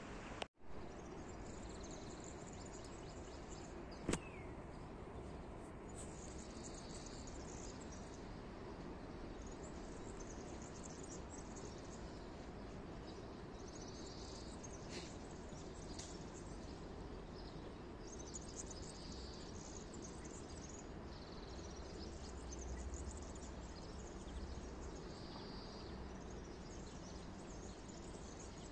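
Faint outdoor ambience: a steady background hiss with birds chirping briefly every few seconds. A single sharp click about four seconds in, and the sound cuts out for an instant about half a second in.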